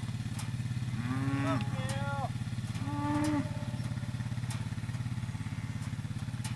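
Cattle mooing, three calls close together in the first half, over the steady low running of an idling four-wheeler engine.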